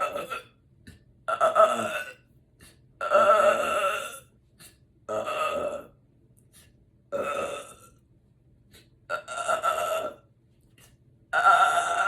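A woman burping loudly after a big fast-food meal: a series of about seven belches, each lasting half a second to a little over a second, with gaps of roughly a second between them.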